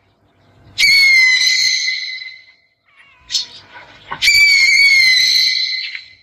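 An owl giving two long, high, screeching calls, each lasting about a second and a half, with a short sharp call between them.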